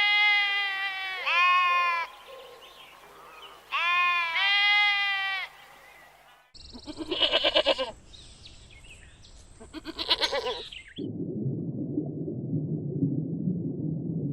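Goat bleating: two pairs of long, wavering calls over the first five and a half seconds. About six and a half seconds in, a different recording takes over, with two bursts of rapid pulsed animal calls, and from about eleven seconds a steady low rumbling noise.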